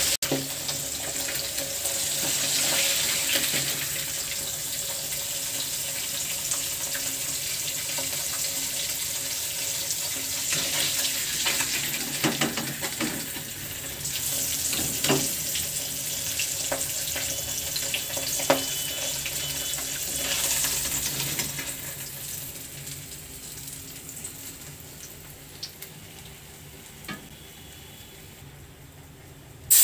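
Marinated fish pieces frying in hot oil in a kadai, a steady sizzle with a few clinks and scrapes of a slotted steel spoon against the pan. The sizzle fades gradually over the last several seconds.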